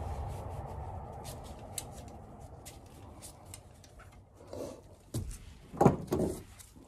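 Handling noises as exhaust wrap and a jubilee clip are worked onto a motorcycle exhaust header: a fading rustle, light scattered clicks, then a few knocks near the end, the loudest about six seconds in.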